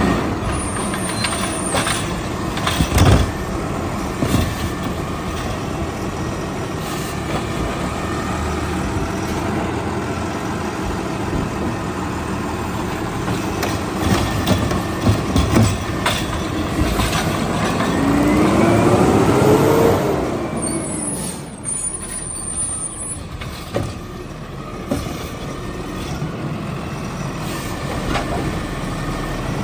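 Peterbilt 520 garbage truck running at the curb while its McNeilus Autoreach automated arm grabs and lifts a cart. About two-thirds of the way through, the engine revs up in a rising whine to drive the arm's hydraulics, then drops back. A thump near the start and a few knocks and clanks of the cart and arm come later.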